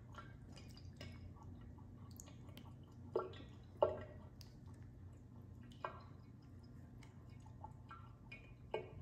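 A cat lapping water from a sink: a quick run of small, soft wet clicks, with a few louder ones about three and four seconds in.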